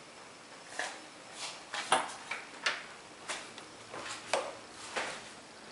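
Footsteps, a string of short soft thuds about two a second, as someone walks across a carpeted room.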